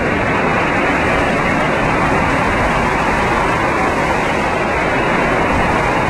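Hurricane Katrina's eyewall wind blowing at full force, a loud, steady rush of noise with no letup; the eyewall was gusting close to 130 mph.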